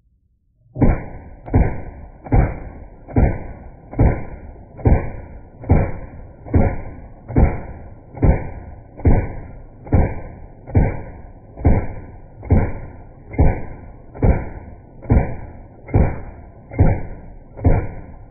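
Rapid fire from an AR-style rifle with a forced reset trigger, played back slowed down so that each shot becomes a deep, drawn-out boom. About twenty evenly spaced shots come roughly one a second, each followed by a fading rumble.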